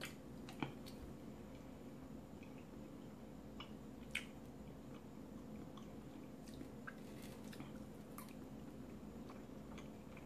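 Faint, close-up chewing of a mouthful of food, with scattered soft mouth clicks, over a faint steady room hum.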